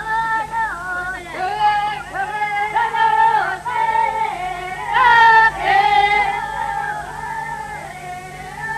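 Music: a high female voice singing a melody in held notes that glide from one pitch to the next, in short phrases.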